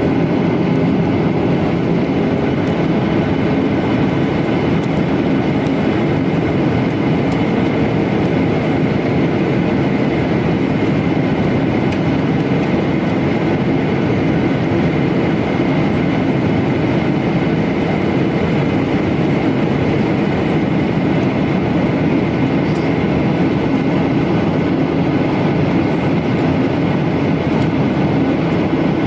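Steady, loud cabin noise of a Boeing 737-900ER in flight: engine and airflow noise with a steady high whine running through it.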